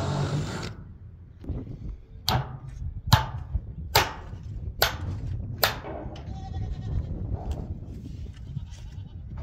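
Five sharp metallic strikes about 0.8 s apart, each ringing briefly: heavy hand tools working against metal while a corrugated-steel duck house is being anchored to the ground.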